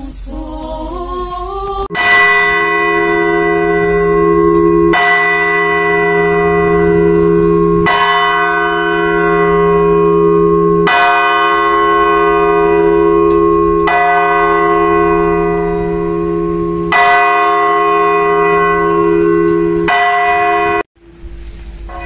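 A single church bell rung by a pulled rope, tolled seven times about three seconds apart, each stroke ringing on into the next, as a memorial toll for the dead. The tolling cuts off abruptly just before the end.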